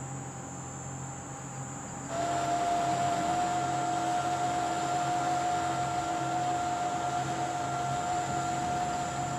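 A steady machine hum and hiss, like an electric motor running. About two seconds in it steps up abruptly into a louder, higher steady whine that holds until the end.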